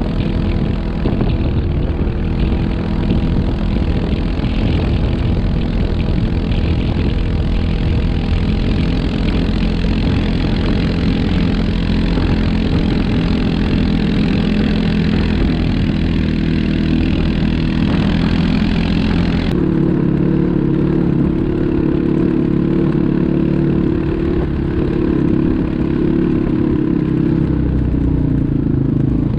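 ATV engines running under way. About two-thirds of the way in the sound changes abruptly: the hiss drops away and a higher engine note comes forward. Near the end that note falls in pitch.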